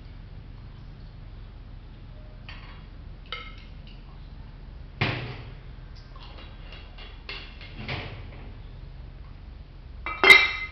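Glass bottles and a glass alcoholmeter being handled on a table: a few scattered knocks and clinks, one heavier knock about five seconds in, and a sharp, ringing glass clink near the end.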